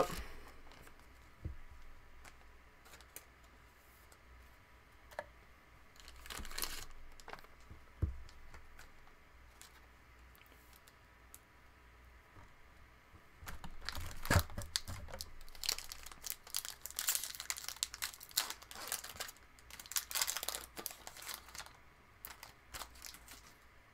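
Thin plastic crinkling and rustling with scattered light clicks: trading cards being slid into plastic penny sleeves. There is a short rustle about six seconds in, and the crinkling runs steadily from about halfway through until near the end.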